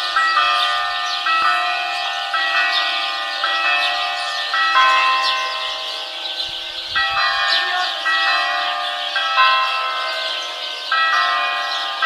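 Church bells pealing, a new strike about once a second with the tones ringing on and overlapping, while birds chirp throughout.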